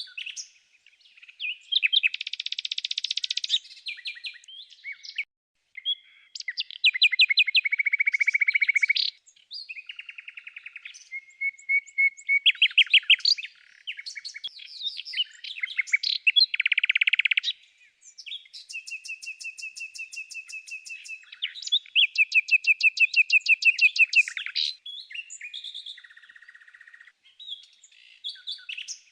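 A songbird singing a varied series of phrases: fast trills, quick runs of repeated notes and short held whistles, one after another with brief gaps.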